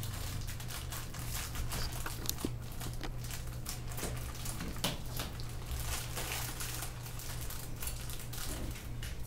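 Plastic packaging crinkling and rustling as it is opened by hand, with a dense run of irregular crackles.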